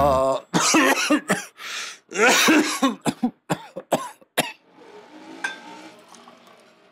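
A man coughing and clearing his throat in a string of short, harsh bouts. Near the end these give way to faint handling sounds with one small click.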